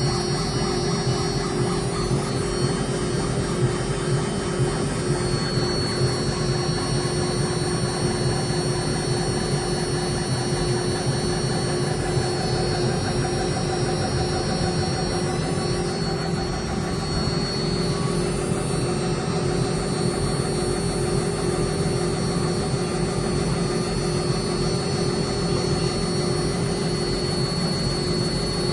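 CNC metal engraving machine running steadily, a constant high whine over a hum and a noisy mechanical band.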